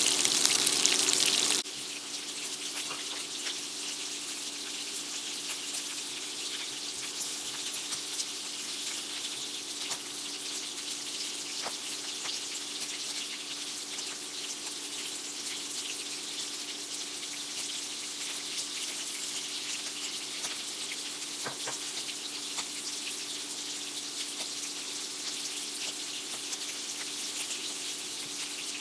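Coconut-coated shrimp frying in hot avocado oil, with a steady crackling sizzle over a faint steady hum. The sizzle is louder at first and drops abruptly to a lower level about a second and a half in.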